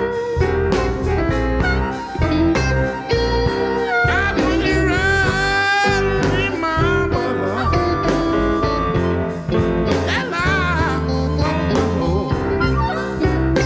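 Electric blues band playing live: drums and bass keep a steady beat under piano, while a lead line of bent, wavering notes rises out of the band twice.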